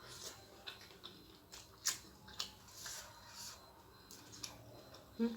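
A person eating close to the microphone: irregular crisp clicks and crunches of biting and chewing, the loudest about two seconds in.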